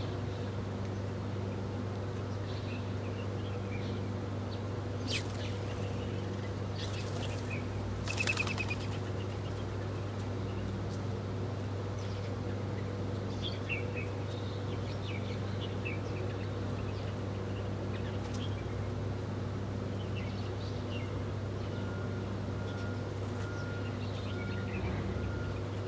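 Small birds chirping in scattered short calls over a steady low hum, with a few louder calls about five to nine seconds in. Near the end an evenly repeating electronic beep starts up.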